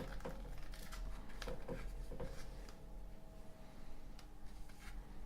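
Light handling sounds of a Zippo lighter and its packaging: scattered soft clicks and rustles, over a faint steady hum.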